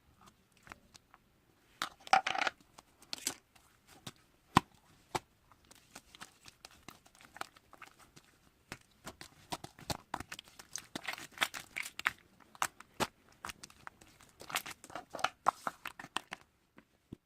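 Mixed slime being squished, stretched and folded by hand, giving runs of wet clicks, pops and crackles in irregular clusters.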